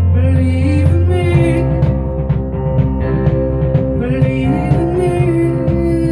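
Rock band playing live: acoustic and electric guitars, bass guitar and a Nord keyboard, with a man singing over them.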